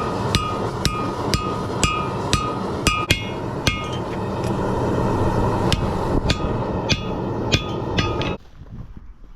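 Hammer striking steel on an anvil about twice a second, each blow ringing, during hand forging. A steady rushing noise runs under the blows and cuts off abruptly about eight seconds in.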